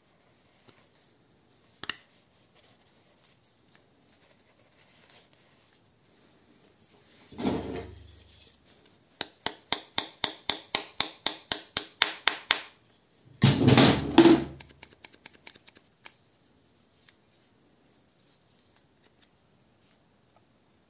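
Hammer tapping a small pivot pin into the trigger of a pneumatic drill. A single knock comes first, then after a pause a run of quick, even taps, about five a second, followed by a cluster of harder blows and a few last taps.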